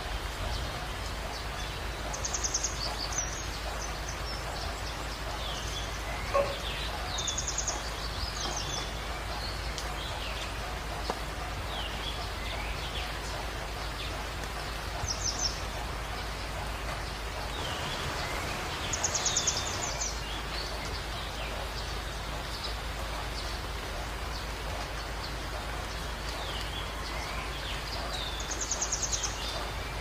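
Steady rain, with songbirds singing over it: several short, rapid high trills and scattered chirps throughout. One sharp click about six seconds in.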